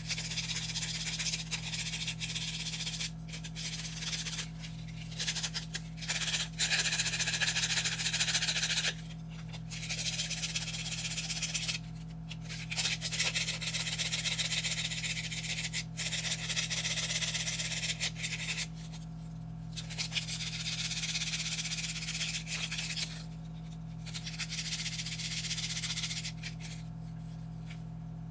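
Sandpaper rubbing back and forth over a dry sycamore stick, sanding off the bark: a run of rasping strokes that come in spells of one to a few seconds with short pauses, over a steady low hum.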